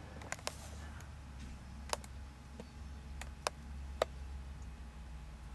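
Light, sharp clicks and ticks at irregular intervals, about eight in five seconds, over a faint low steady rumble.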